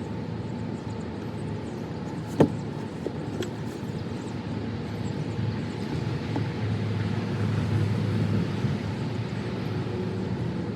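Steady outdoor wind noise with a low rumble that swells a little past the middle, and one sharp knock about two and a half seconds in.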